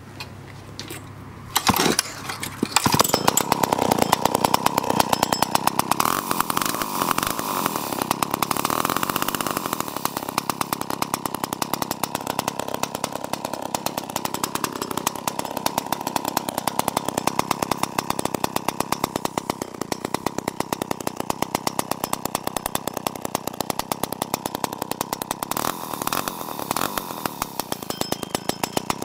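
Vintage MobilCo single-cylinder two-stroke chainsaw starting about two seconds in and then running, with a rapid firing beat that revs up and down unevenly.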